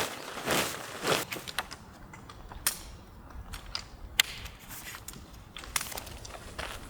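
A couple of crunching footsteps in the first second, then scattered single sharp clicks and taps, the loudest about four seconds in.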